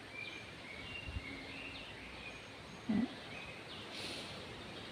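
Small birds chirping with short, thin, repeated notes over steady outdoor background noise. A brief louder sound with a rising pitch comes about three seconds in, and a short hiss about a second later.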